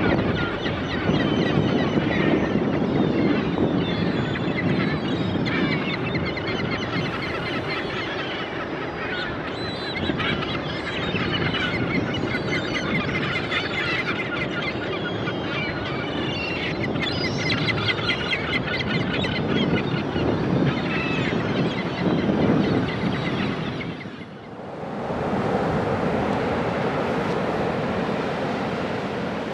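A flock of seabirds calling over one another in many short squawks above the rush of surf. About 24 seconds in, the calls stop abruptly and only the steady surf and wind remain.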